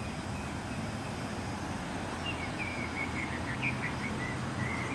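Outdoor ambience: a steady low background rumble, with a small bird giving a string of short, high chirps from a little over two seconds in.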